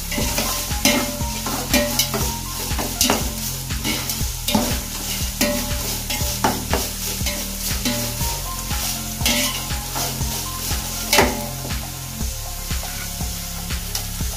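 Sliced onions sizzling in hot oil in a metal pot while a metal spatula stirs them, scraping against the pot at an irregular pace, with one louder scrape late on. The onions are being sautéed until soft.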